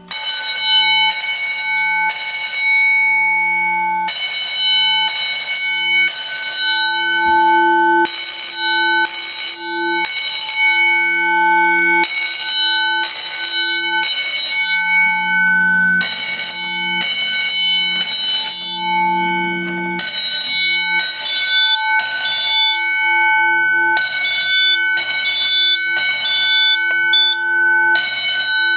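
Edwards 439D 10-inch fire alarm bell sounding in the code 3 (temporal-three) evacuation pattern. Three rapid half-second rings come in a row, a new group starting every four seconds, and the gong keeps ringing on in between.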